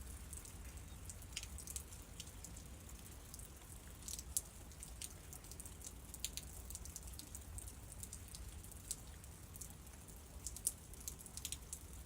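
Rain falling in scattered drops, ticking irregularly on hard surfaces close by, with a steady low rumble underneath. A couple of drops land louder than the rest.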